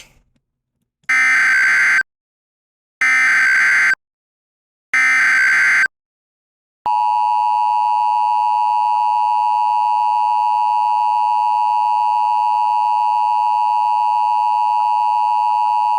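Emergency Alert System tones. Three one-second bursts of the SAME digital header come a second apart, a harsh buzzing data screech. Then, from about seven seconds in, the steady two-tone EAS attention signal sounds, the alert that comes before the spoken emergency message.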